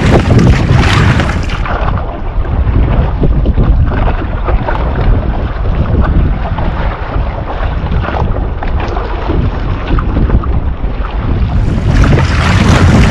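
Wind buffeting the microphone and water splashing and rushing along a one-person outrigger canoe's hull and float as it is paddled over choppy ocean swell. The sound turns duller about two seconds in and brightens again near the end.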